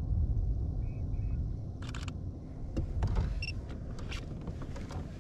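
Camera shutter of a Sony A7R IV firing a short rapid burst about two seconds in, followed by scattered light clicks and knocks from handling the camera on its gimbal mount, over a steady low rumble.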